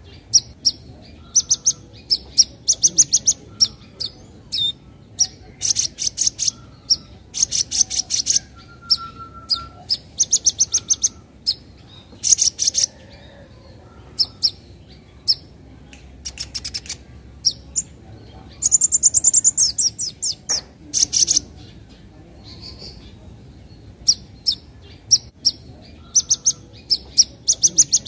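Young kolibri ninja sunbird (konin) giving sharp high chirps and bursts of very rapid chattering 'crett-crett' notes, with short pauses between the bursts.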